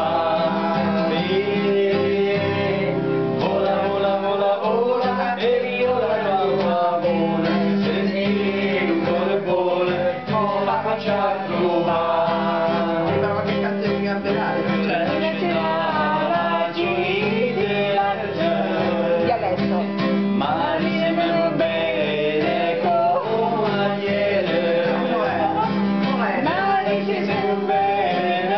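Acoustic guitar strummed as accompaniment while a man sings.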